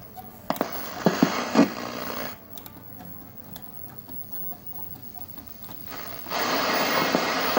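Old portable TV's speaker hissing with static as its rotary tuner is turned: a burst of static with several sharp clicks in the first two seconds, a quieter stretch, then loud, steady static cutting in about six seconds in.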